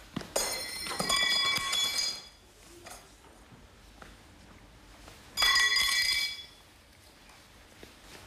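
Bell-like ringing of several steady high tones, heard twice: for nearly two seconds at the start and for about a second past the middle.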